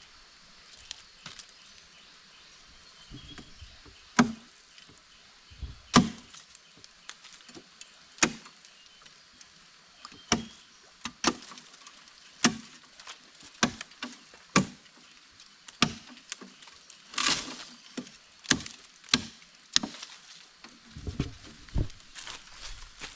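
A hand blade chopping into wood, in single sharp strikes. The strikes are spaced a couple of seconds apart at first, then come about once a second, with one longer rasping crack partway through.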